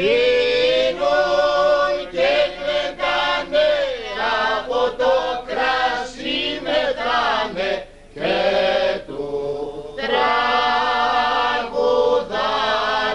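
Several men singing a Greek popular song together in long, held, wavering notes, with short breaks between phrases.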